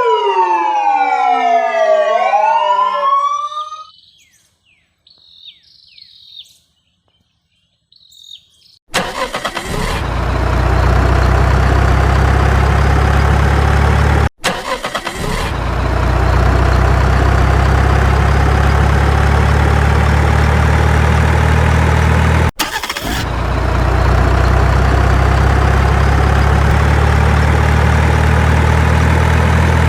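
Several overlapping siren wails swooping up and down, fading out after a few seconds, then a few faint chirps. About nine seconds in, a loud, steady, low engine drone starts, like a heavy truck running, and cuts out briefly twice.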